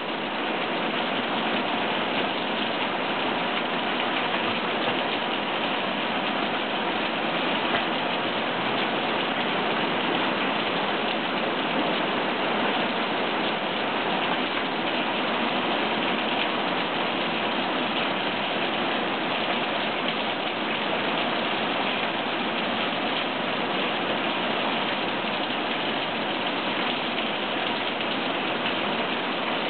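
Steady rain falling, a constant even hiss that does not let up.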